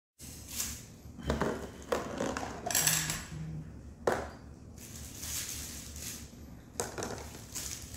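Rustling, crinkling and clunks of things being handled close to a phone's microphone on a tabletop, in a string of separate bursts, with a sharp knock about four seconds in.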